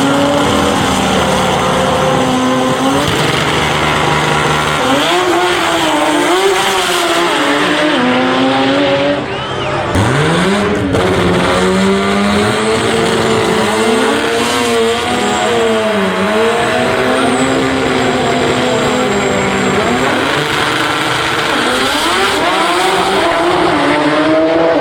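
High-revving car engine with revs rising and falling again and again, and tyres squealing. About nine seconds in the sound dips briefly, then the revs climb fast.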